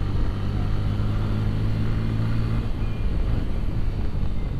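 Bajaj Pulsar N160 motorcycle's single-cylinder engine running steadily under way, a low drone with road and wind noise.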